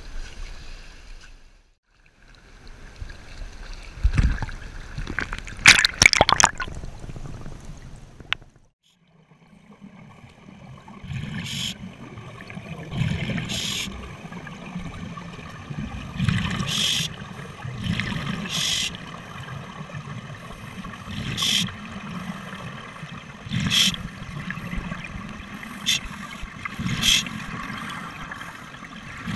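Scuba breathing recorded underwater: exhaled bubbles from a regulator burst out in regular puffs, roughly every two to three seconds, over a steady low rumble. Before that, about five seconds in, there is a short loud cluster of knocks and splashes.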